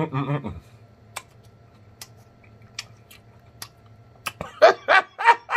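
A man chewing a mouthful of collard greens with scattered soft mouth clicks and smacks, after a brief hum at the start. Near the end come four short, high-pitched yelping sounds in quick succession.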